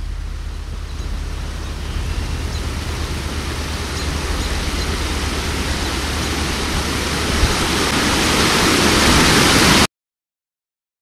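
Rushing water of a flood, a steady noise that swells louder for about ten seconds and then cuts off suddenly.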